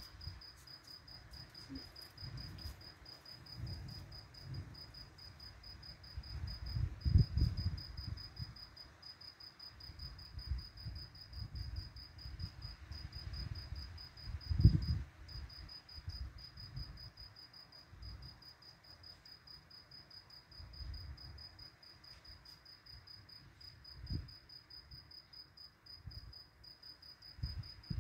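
A cricket chirping in a steady run of rapid, even high pulses. Low rumbles come and go underneath and are loudest about seven and fifteen seconds in.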